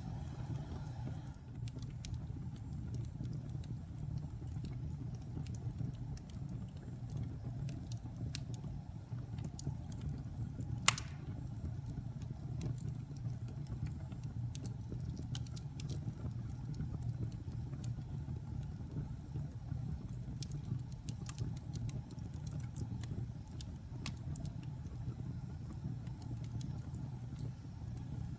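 Wood fire burning: a steady low rush of flames with scattered sharp crackles, and one loud pop about eleven seconds in.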